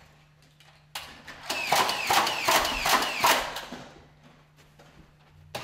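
Nerf blaster firing: a single click about a second in, then a rapid series of about six shots, roughly three a second, each with a short falling whoosh, and another sharp click at the very end.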